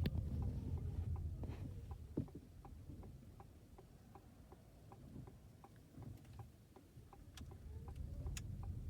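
A Ford car's turn signal ticking evenly, a little over two ticks a second, over the low rumble of the car moving, heard from inside the cabin.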